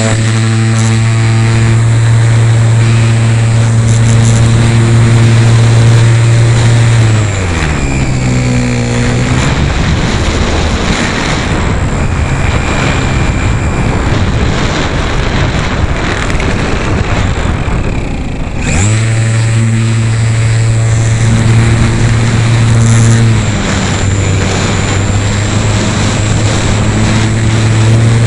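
Electric R/C model airplane's motor and propeller running with a steady hum; about seven seconds in the throttle is cut and the pitch falls away, leaving a rushing noise of air. About ten seconds later the motor throttles back up sharply to a steady hum again.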